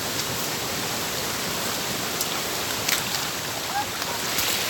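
Waterfall: a steady rush of falling water, with a few faint clicks over it.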